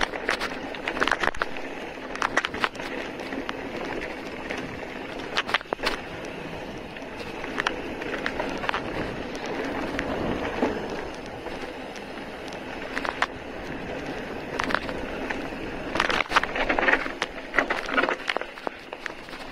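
Mountain bike tyres rolling over loose gravel and stones on a dirt track, with a steady rushing noise and many sharp clatters and knocks as the bike rattles over the rough ground, busiest near the start and in the last few seconds.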